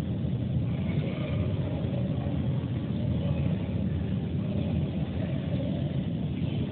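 Steady low rumble from an Airbus A320 being pushed back by a tug on the apron.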